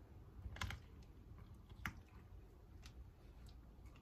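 Faint wet squelching and a few soft clicks from fingers working inside a plucked pigeon's body cavity, pulling out the lungs.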